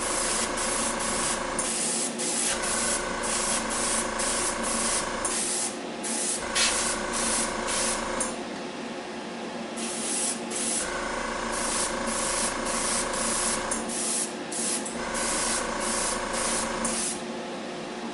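Gravity-feed airbrush spraying primer, hissing in many short bursts as the trigger is pulled and released, with a longer break about halfway through. A small motor hums steadily underneath.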